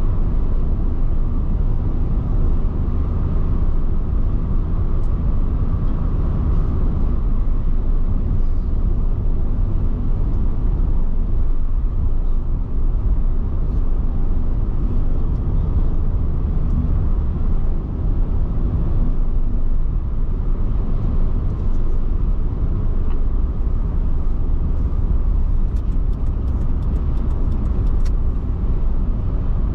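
Car cruising at a steady speed, heard from inside the cabin: a constant low rumble of road and engine noise that holds level throughout.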